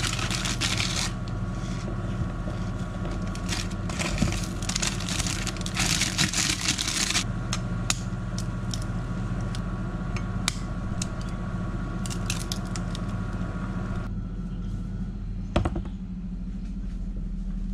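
Instant noodles being cooked in a stainless steel pot: a plastic packet rustles and its contents are shaken in, an egg is cracked and utensils clink and scrape against the pot. Under it runs a steady electrical hum with a high whine that stops about fourteen seconds in.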